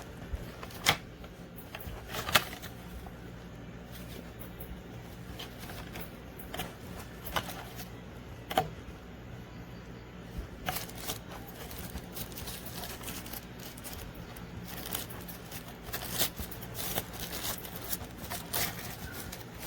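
Small packaging being handled: scattered sharp clicks, taps and short rustles, coming thicker near the end, over a low steady hum.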